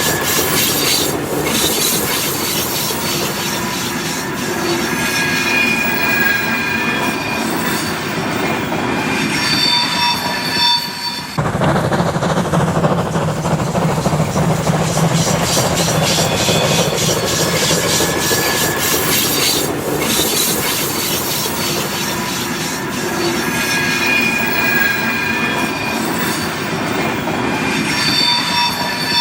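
Steam-hauled heritage train, led by locomotive BR 98 886, rolling past on the rails with its steel wheels squealing. The squeal comes in two long spells, and the sound changes abruptly about eleven seconds in.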